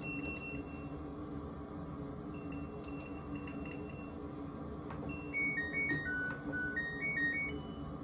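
LG front-load washer control panel beeping as its buttons are pressed: a single high beep at the start, another around three seconds in, then a short stepped electronic tune of about eight notes as the Temp and Spin buttons are held together to toggle Control Lock. Faint button clicks come with the presses.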